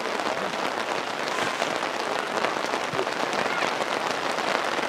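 Steady patter of rain: a continuous hiss dotted with many small drop ticks.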